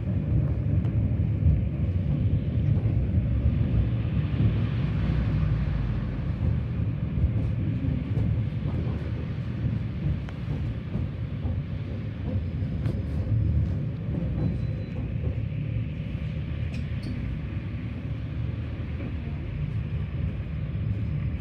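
Tram rolling along its rails: a steady low rumble of wheels and running gear.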